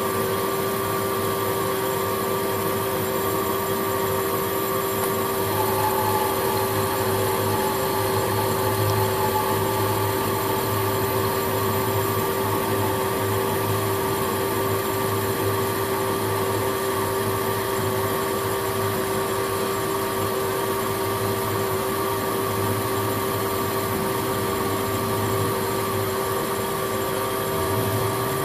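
Metal-turning lathe running under power with the carriage feeding a carbide tool along a hardened steel bar on a very light, one-thou cut: a steady machine hum with a constant whine.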